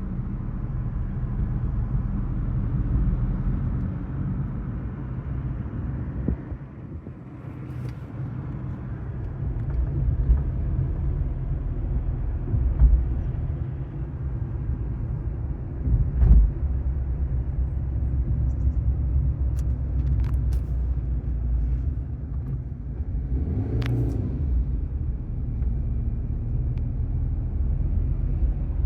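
A car driving along a road: a steady low rumble of engine and tyres, with a few short knocks and bumps along the way.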